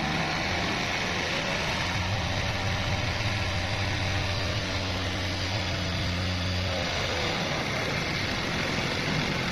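Small air-cooled single-cylinder motorcycle engine idling steadily on LPG alone, its petrol feed disconnected. Its low steady hum fades about seven seconds in while the running noise carries on.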